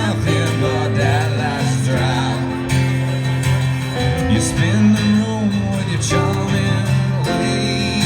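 Live band playing a country-style song, with acoustic guitar strumming under a wavering melodic lead line.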